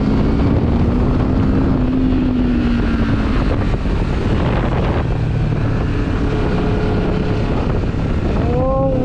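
Benelli TRK 702 parallel-twin engine running at road speed, heard through wind noise on the microphone. The engine note sinks slightly at first, then rises and falls again near the end as the bike slows for a bend.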